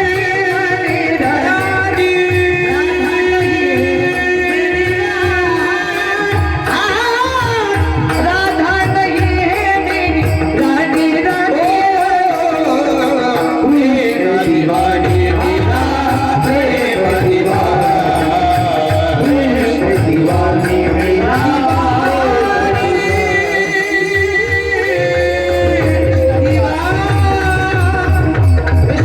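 Devotional song: a voice singing a melody over sustained instrumental notes and steady drumming.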